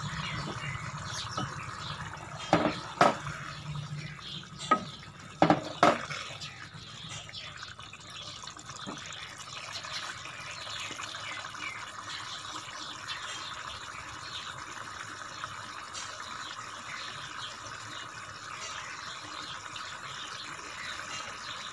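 Pot of moong dal bubbling on the stove, a steady wet simmering hiss. A few sharp clicks sound within the first six seconds.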